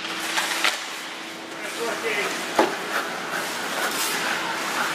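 Ice hockey play on the rink: skate blades scraping the ice, with several sharp clacks of sticks and puck spread through, and faint shouting from players.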